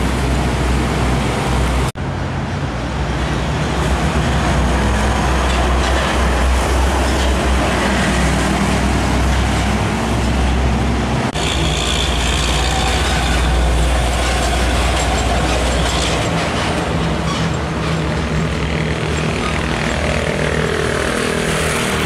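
Heavy diesel trucks passing on a busy road: a loud, steady low engine rumble with traffic noise, breaking off briefly twice. Near the end an engine's pitch shifts as a loaded truck pulls up an overpass ramp.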